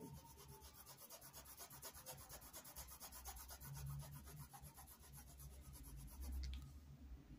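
Faint rubbing of a paintbrush scrubbing back and forth over a cloth dish towel in quick, even strokes, spreading fabric paint.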